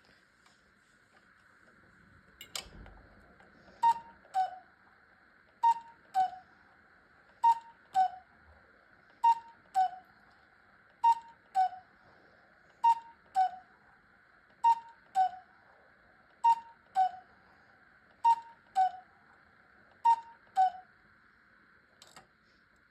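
Cuckoo clock calling ten times. Each call is a falling two-note "cuckoo", repeated about every two seconds, and the ten calls sound the hour. A single click comes before the first call.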